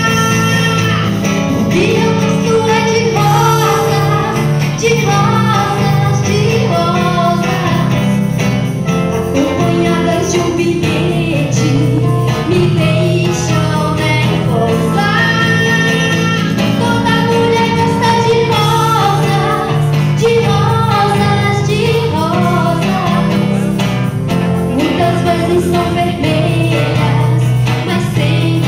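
A woman singing lead into a microphone over a live band with guitars and drums, sustained sung notes over a steady bass line.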